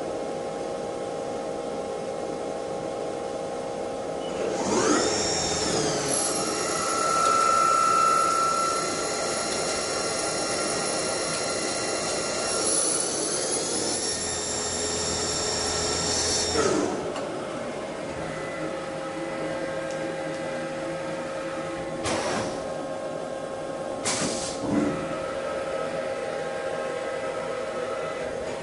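CNC machine running with a steady hum. About four seconds in, the spindle winds up to a high whine that holds steady, steps up in pitch about halfway, then winds down. Two sharp clicks follow later.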